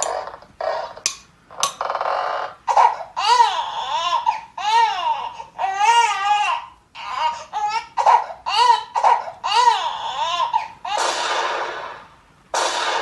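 A crying voice in a string of short wails, each rising and falling in pitch, with a stretch of hissing noise near the end.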